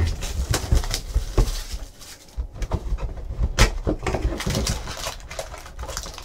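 Cardboard trading card box being handled and opened by hand: irregular crackling, rustling and light knocks as the box is worked open and foil packs are pulled out.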